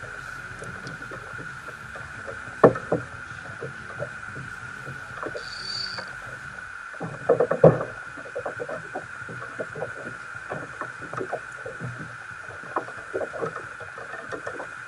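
Irregular knocks and rattles of fishing rods and gear against a plastic fishing kayak, with two louder knocks about two and a half and seven and a half seconds in, over a steady faint high whine.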